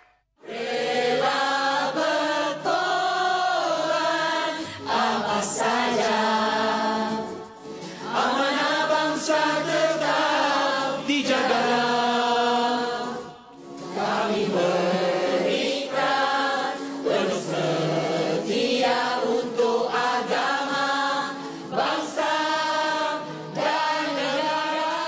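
A group of voices singing together in long, held phrases in harmony, broken by short pauses.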